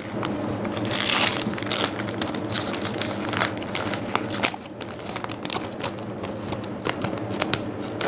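Clear plastic vacuum-sealer bag crinkling and crackling as a frozen milkfish is pushed into it, with a louder rustle about a second in.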